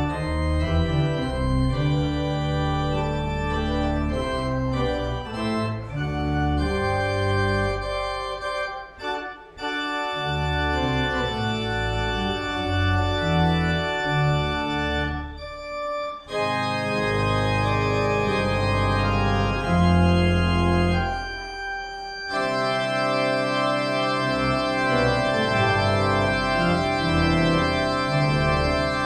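Organ music: full held chords that change every second or so, with short breaks about 9 and 16 seconds in.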